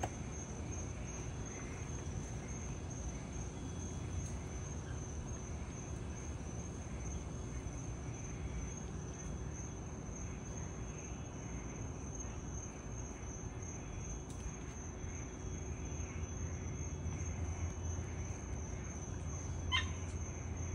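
Night insects, crickets or similar, trilling steadily in a continuous high tone, over a low steady rumble. A short squeak comes near the end.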